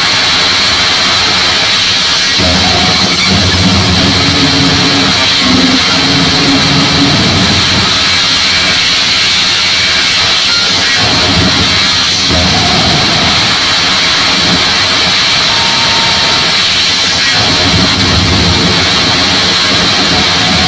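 Harsh digital noise performance: a loud, unbroken wall of hiss and static with a strong high band, while low-pitched layers cut in and out every few seconds, as in cut-up noise music.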